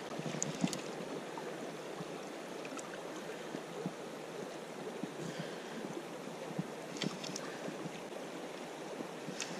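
River water flowing steadily past a wading angler, with a few light clicks now and then.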